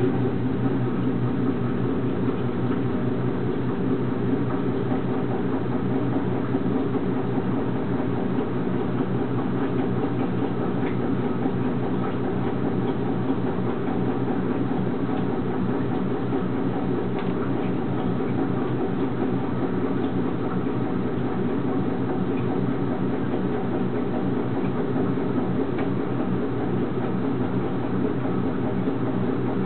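A motor or engine running steadily with an even, low-pitched hum.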